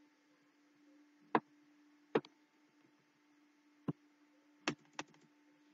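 Five separate, sharp clicks from a computer keyboard, spaced irregularly about a second apart while code is edited. A faint steady hum sits under them.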